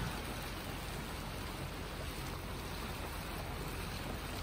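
Steady rushing noise of water along the hull of a sailboat under way, with no distinct tones or knocks.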